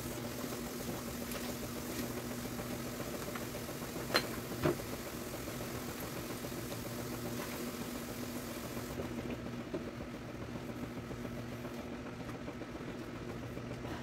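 Steady low machine hum, with two light knocks a little after four seconds in.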